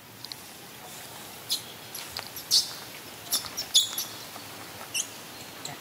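Baby macaque giving a handful of short, high-pitched squeaks at irregular intervals.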